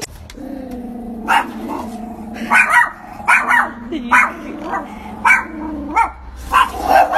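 Dogs barking repeatedly: about a dozen short, sharp barks, roughly one every half second, over a steady low drone.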